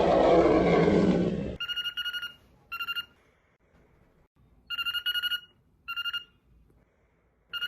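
A loud, rough noise that stops abruptly about a second and a half in. Then a parrot imitates a ringing telephone: clean trilling rings coming in pairs, a longer ring followed by a shorter one, repeated with short pauses.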